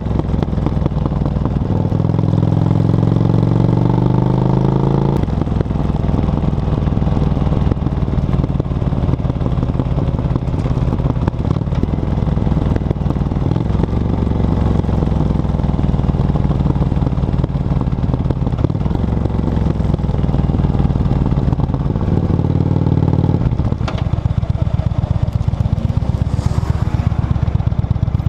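Yamaha XV535 Virago's air-cooled V-twin running through a SilverTail K02 aftermarket exhaust under way, climbing in pitch as it revs up about two seconds in, then holding steady. It rises again briefly, and from near the end it drops to a slow, uneven beat of separate firing pulses.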